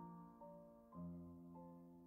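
Faint background music: a few soft notes struck about every half second, each ringing and fading.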